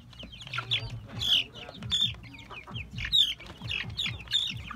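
A flock of young black chickens clucking and calling in short, overlapping notes while feeding, with quick sharp taps of beaks pecking at a plastic feeder pan.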